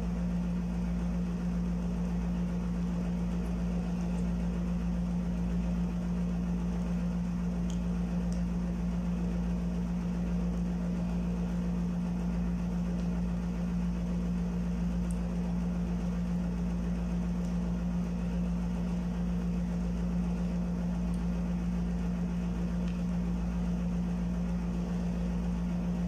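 Steady low hum of a room air conditioner running, with a few faint clicks of a plastic spoon against a plastic sundae cup.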